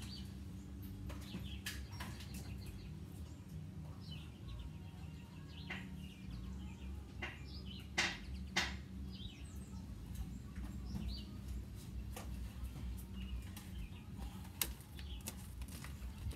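Faint, scattered short bird chirps over a steady low hum, with two sharp knocks about eight seconds in, half a second apart.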